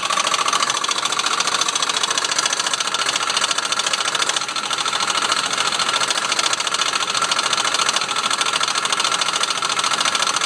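1993 Jeep Grand Cherokee engine running with a loud, very rapid, even chattering from the engine bay over a steady high tone. The owner takes it for a belt or fan problem.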